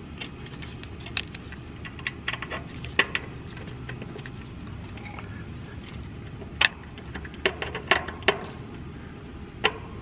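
Irregular metallic clicks and taps of a screwdriver, screw and hard start kit against the sheet-metal control panel of an air conditioner condensing unit as the hard start kit is screwed back in place, over a steady low background noise.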